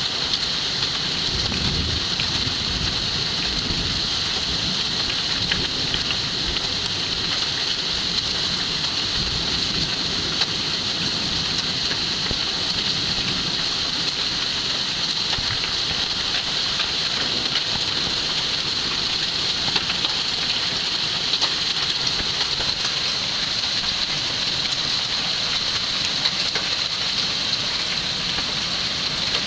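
Heavy thunderstorm rain with hail pelting down: a steady hiss with scattered sharp ticks of stones striking. A low rumble of wind gusts comes through in the first few seconds.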